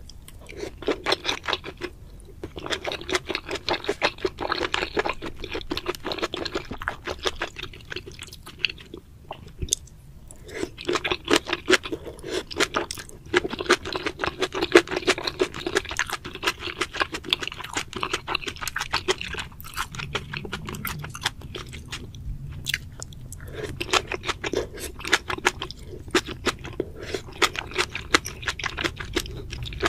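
Close-miked ASMR chewing of spicy braised seafood, octopus tentacles at first: a dense run of wet mouth clicks and smacks, with a few short pauses.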